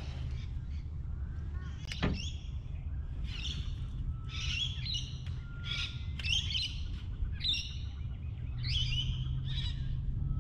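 Birds calling: a string of short chirpy phrases, roughly one a second, over a low steady rumble, with a single sharp click about two seconds in.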